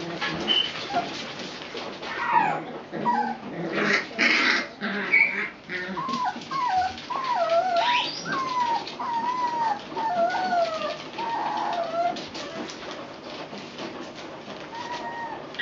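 Puppies play-fighting: short high whines and yips that rise and fall in pitch, coming in a quick run from about six seconds in until about twelve, with crinkling and rustling of newspaper under them in the first few seconds.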